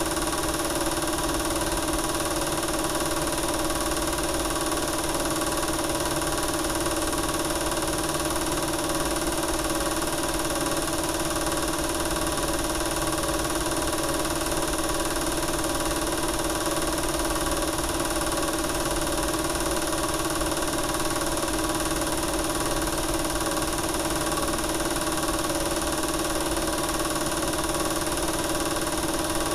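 A film projector running, a steady mechanical hum that does not change.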